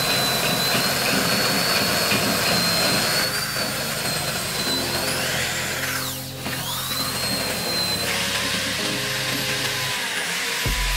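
Rotary tool whining at high speed as its small polishing bit grinds inside the eye of a steel hammer head. Its pitch dips and recovers about six seconds in, and near the end the whine gives way to a rougher, more even hiss.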